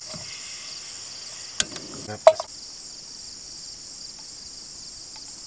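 Steady high chirring of crickets in the surrounding grass, broken by two sharp clacks about one and a half and two and a quarter seconds in, the second one louder.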